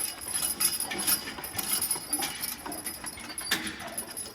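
Harnessed mule team moving off: irregular hoof clops mixed with the jingle and clink of harness hardware.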